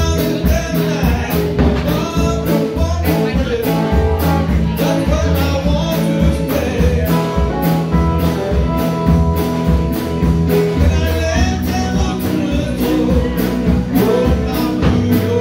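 A live rock-blues band with electric guitars and a drum kit plays a steady beat, with a woman singing over it.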